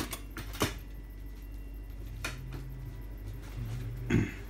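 A few light clicks and knocks and a short rustle as a package is handled and moved on a kitchen counter, with a faint low hum between them.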